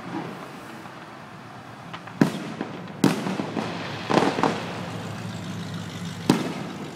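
Distant firework shells bursting: separate sharp bangs, each with a short echo, about five in all, with a quick pair about four seconds in.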